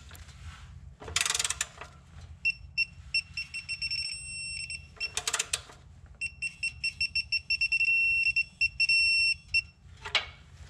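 Electronic beeper of a digital torque wrench sounding as an oil drain plug is torqued to 20 ft-lbs: two runs of high beeps, the second quickening and merging into a near-steady tone as target torque is reached. Two short rattles from the wrench come before the runs.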